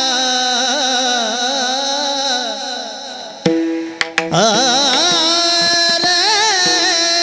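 Varkari kirtan music: a wavering sung melody over a steady harmonium drone, with a few sharp mridang strokes about three and a half to four seconds in, after which the singing and drone carry on.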